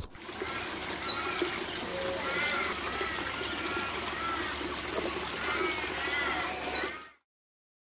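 Birds chirping: a high, falling chirp repeats four times, about two seconds apart, over softer warbling calls and a steady hiss. The sound stops abruptly about seven seconds in.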